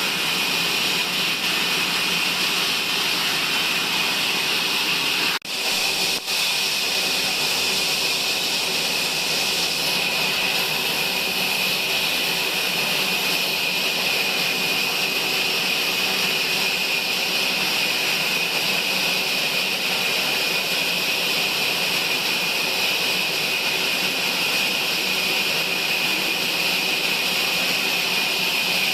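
Sawmill saw running with a steady, loud, high-pitched machine noise that cuts out briefly twice, about five and six seconds in.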